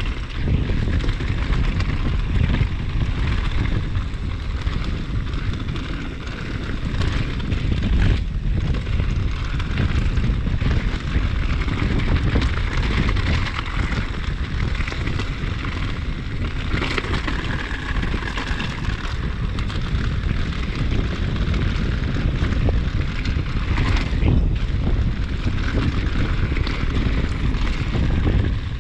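Wind rushing and buffeting over the microphone as a mountain bike rides a downhill trail at speed, with the tyres and bike rattling over the dirt and a few sharp knocks spread through.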